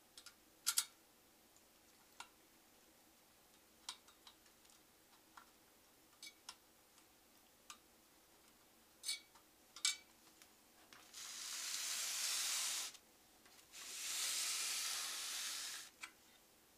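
Scattered light clicks and taps of a screwdriver working the heatsink's mounting screws. Then two scraping rubs of about two seconds each, as the motherboard is slid round on the wooden desk.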